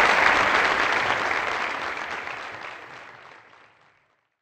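Audience applauding, fading out steadily over the second half.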